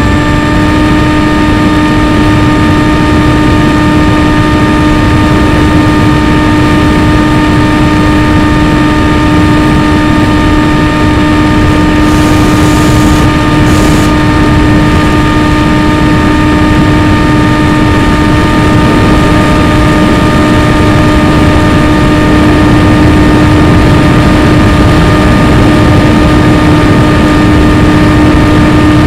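Motor and propeller of an RC FPV aircraft running at a steady, unchanging pitch, heard from on board with wind rushing past. A brief extra hiss comes about twelve seconds in.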